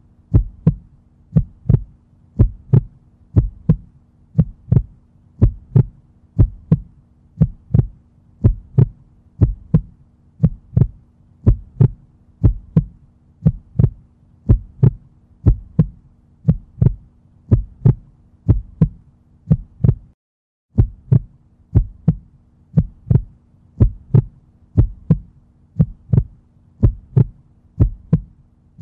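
Heartbeat sound effect: paired low thumps repeating about once a second over a steady low hum, cutting out briefly about twenty seconds in.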